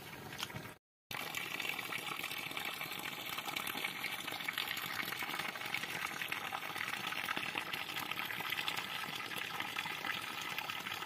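Steady outdoor rushing noise, even and unbroken, beginning after a brief dropout about a second in.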